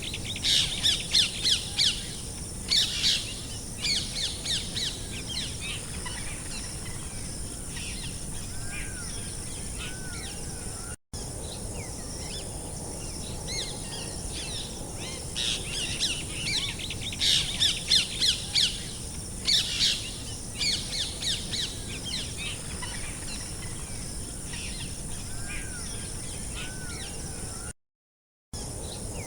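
Ambient birdsong recording: many small birds chirping in quick, bright trills over a steady high-pitched hiss. The sound cuts out briefly about eleven seconds in and again near the end, and the same stretch of chirping seems to play again after the first cut, as in a looped track.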